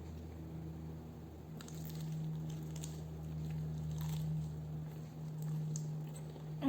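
Soft, wet squishing and a few faint crackles from sauced fried chicken being handled and eaten, over a steady low hum.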